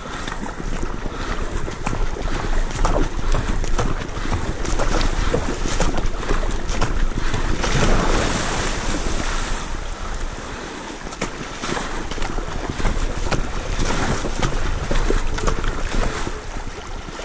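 Sea water rushing and splashing along the hull of a surfski paddled at speed through choppy waves, with wind buffeting the microphone. The wash swells into a louder surge of spray about eight seconds in.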